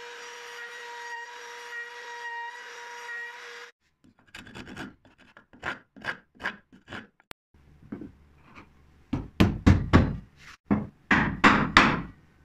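Wood router motor running with a steady whine, cut off about three and a half seconds in. Then a hand rasp filing a wooden tenon in short separate strokes, which grow louder and heavier near the end.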